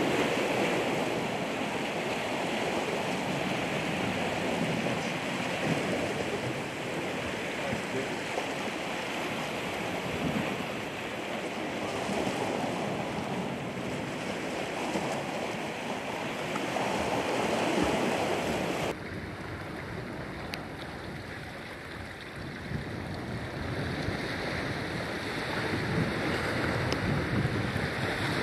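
Ocean surf washing onto the shore, with wind buffeting the microphone. About two-thirds of the way through, the sound cuts suddenly to a quieter, duller wash.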